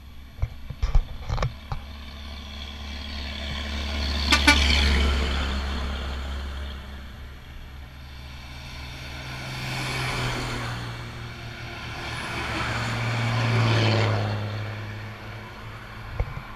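Highway traffic passing close by: trucks and a car go past one after another, each swelling and fading, loudest about four seconds in and again around ten and fourteen seconds. A few sharp knocks in the first two seconds.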